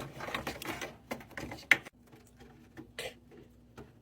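Hands working PC parts in a computer case: a quick run of small plastic and metal clicks and rattles, with one sharp click just under two seconds in. After that it goes quiet but for a faint steady hum and a couple of lone clicks.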